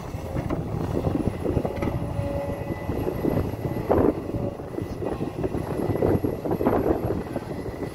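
Hidromek 410 crawler excavator working: its diesel engine running steadily under load, with louder bursts of noise about halfway through and again near the end as the bucket digs into the soil.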